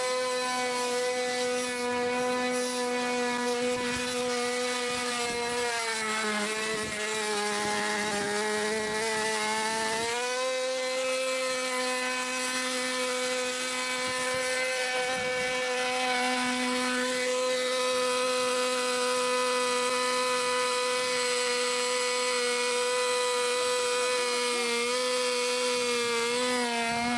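Small two-stroke .46 nitro glow engine of an RC pylon racer running steadily at high revs. Its pitch sags for a few seconds about a quarter of the way in, then climbs back and holds.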